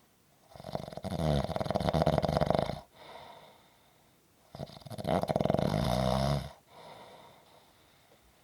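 Snoring: two long, fluttering snores about four seconds apart, each followed by a softer, shorter breath out.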